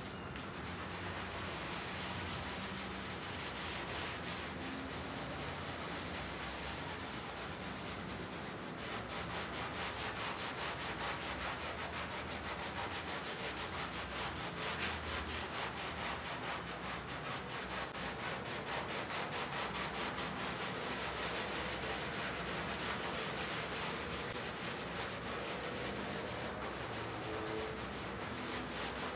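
Stiff-bristled hand brush scrubbing a wet, soapy rug in rapid back-and-forth strokes, a continuous scratchy rubbing. The strokes get faster and a little louder about nine seconds in.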